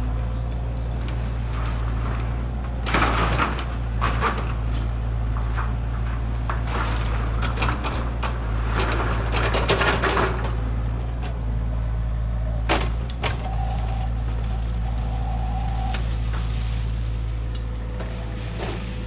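A heavy machine's engine running steadily while it pushes and grabs wood debris, with crunching and cracking of wood and junk breaking about three seconds in, again around nine to ten seconds, and one sharp crack a little later.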